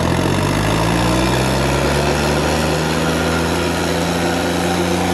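Farmtrac tractor's diesel engine running at full throttle under heavy load as it strains against another tractor in a tractor tug-of-war. Its pitch climbs slightly over the first couple of seconds, then holds steady.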